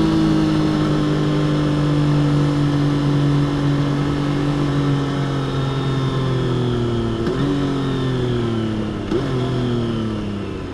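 Triumph Trident 660's 660 cc inline three-cylinder engine on its stock exhaust, heard under way and slowly dropping in revs as the bike slows. Two gearshifts come about seven and nine seconds in, the second with a quick rev blip, and each leaves the engine running at a lower pitch.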